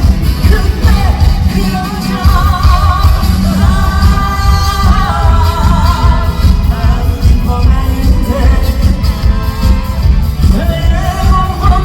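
A singer performing live over a loud band backing track through a concert PA. The sung melody has long, wavering held notes over a heavy, pulsing bass.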